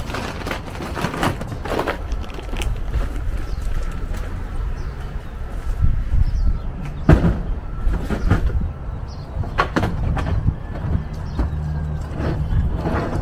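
Wind buffeting the microphone as a heavy, uneven low rumble, with scattered knocks and rustles over it.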